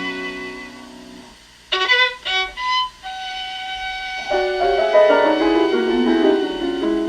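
Recorded violin music played through a single-ended 6BM8 (6F3P) valve amplifier and bare Isophon oval loudspeakers. A held phrase fades out about a second in, a few short notes follow, then one long note and a busier passage of several notes.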